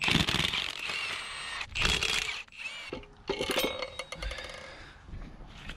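Short bursts from a cordless impact wrench on the SR20 engine's main bearing cap bolts, then metal parts clinking and scraping as the caps come off the block. The sound trails off in the last couple of seconds.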